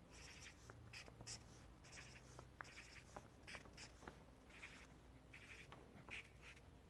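Faint scratching of a pen on paper in short, irregular strokes, with a few light ticks: marks being written in a notebook.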